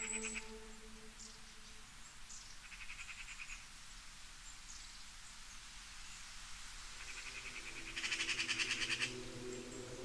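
Animal calls: two short trills of rapid, evenly spaced pulses, one about three seconds in and a louder one near the end.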